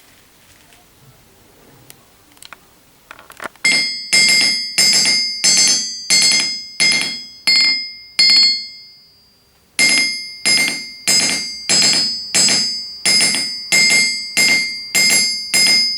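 Hammer striking the hardened steel face of an anvil, which the owner takes for a Mousehole Forge anvil, in a steady run of blows about three every two seconds, each leaving a clear bell-like ring. After about seven blows it pauses for a second and a half, then the blows resume.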